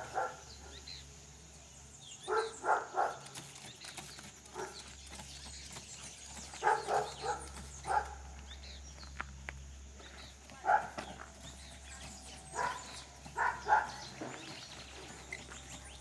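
A dog barking repeatedly, short barks in clusters of two to four every few seconds, with faint bird chirps behind.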